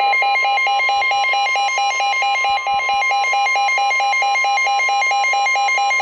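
Weather radio sounding a severe thunderstorm warning alert: a rapid two-pitch alarm beeping over the steady 1050 Hz NOAA Weather Radio warning tone that comes before the spoken warning message.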